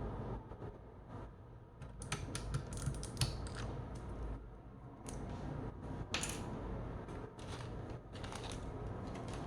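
Keys of a Keychron K1 SE low-profile mechanical keyboard being typed on: irregular runs of clicking and clacking, in a few bursts with short pauses between.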